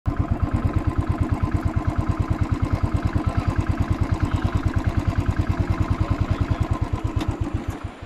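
An engine idling with a steady, fast, even thumping of about nine beats a second, stopping abruptly at the end.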